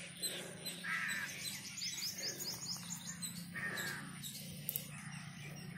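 Birds calling: two harsh calls, about a second in and near the four-second mark, with a quick run of high chirps between them.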